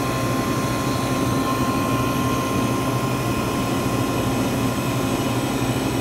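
Scotsman ice machine running in its freeze cycle: a steady mechanical hum and whir, with a thin steady whine that stops shortly before the end.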